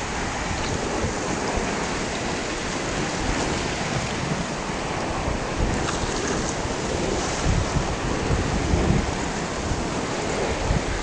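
River ice floes drifting and grinding against one another, a steady hissing rush with faint crackles. Wind buffets the microphone in low gusts near the start and again later on.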